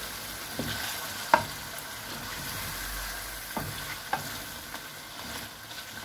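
Chicken karahi sizzling in a metal karahi while a wooden spoon stirs it, the frying masala being mixed through. Scraping, with a few sharp knocks of the spoon against the pan, the loudest about a second in.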